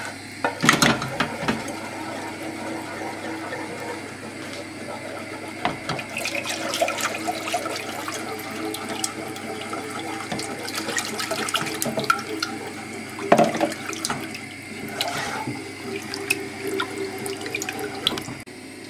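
Wooden spoon stirring milky white sauce in a saucepan: liquid sloshing with irregular small scrapes of the spoon against the pan. About halfway through, milk is poured into the sauce from a measuring jug.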